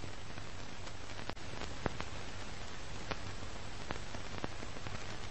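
Old-film soundtrack noise added as an effect: a steady hiss over a faint low hum, with scattered crackles and pops and a brief dropout a little over a second in.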